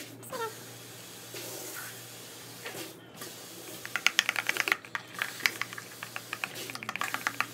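Metal spoon and hands working a runny homemade glue slime in a plastic bowl. About four seconds in it turns into a fast, dense run of wet clicks and squelches as the mixture is squeezed and stirred.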